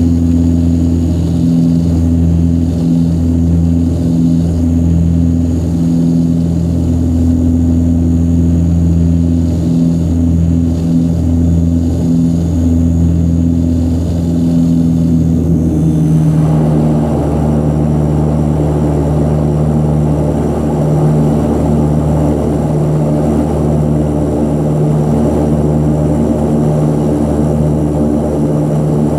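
An Antonov An-24RV's Ivchenko AI-24 turboprop engines and propellers drone steadily, heard from inside the cabin beside the propeller during taxi. About halfway through, the engine note shifts and grows fuller.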